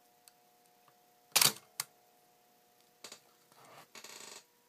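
Olympus OM-1 35 mm SLR's shutter firing about a second and a half in: a loud mechanical clack, then a lighter click a moment later. Near the end the film advance lever is wound, a few soft clicks and then a short ratcheting run.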